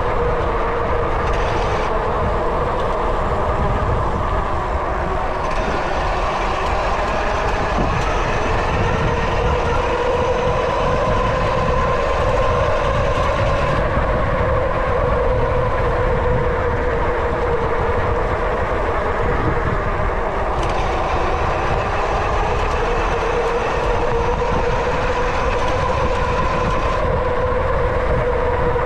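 Fat-tire mountain bike's knobby tyres humming as it rolls, a steady whirring drone that rises and falls gently in pitch with riding speed, with wind rumbling on the microphone underneath.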